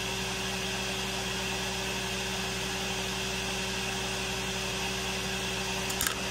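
Steady hum and hiss of a running electric machine. Near the end comes a light tap as a metal-tipped pick tool is set down on the steel bench.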